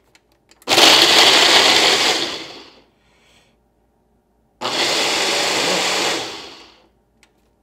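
Countertop blender running in two bursts of about two seconds each, blending a shake of milk, protein powder and peanut butter; each burst starts suddenly and winds down as the motor stops.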